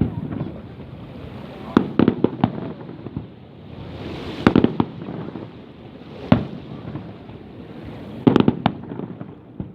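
Fireworks going off: sharp bangs in clusters, with a rising hiss into a bang about halfway through and a quick string of reports near the end.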